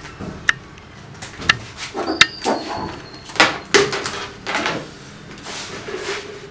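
About half a dozen sharp clicks and knocks of a bare Dell 5530 laptop motherboard being handled: lifted, turned over and set back down on a workbench.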